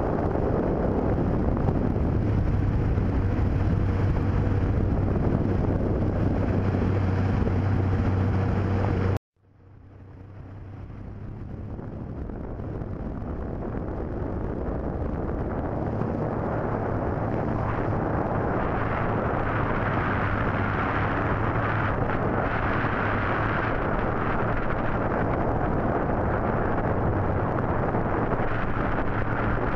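Small boat's motor running steadily with a low hum, mixed with wind on the microphone. The sound cuts out abruptly about nine seconds in and fades back up over the next several seconds.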